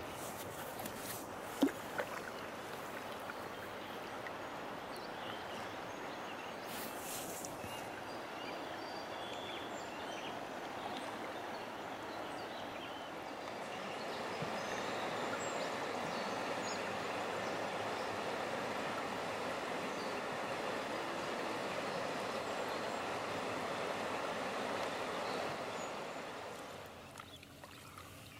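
Rushing river water, a steady noisy wash that grows louder about halfway through as a kayak runs a riffle, then falls away near the end. Two sharp clicks sound in the first couple of seconds.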